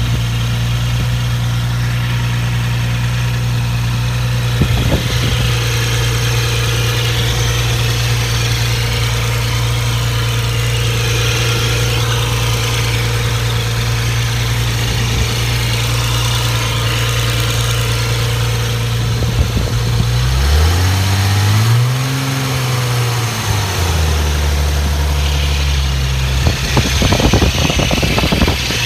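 Nissan 300ZX engine idling after a cold start, making a strange noise over the steady idle. About twenty seconds in, the engine speed swings down, up and down again over a few seconds, then settles back to a steady idle near the end.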